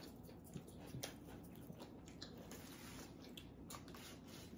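Faint chewing and wet mouth sounds from eating a sub sandwich and potato chips, with a few small scattered clicks.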